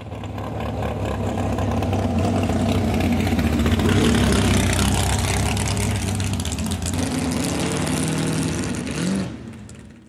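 A V8 dragster driving slowly past, its engine running at low revs. It grows louder as the car approaches, is loudest about four seconds in, then fades as it moves away, with a brief rise in engine pitch near the end.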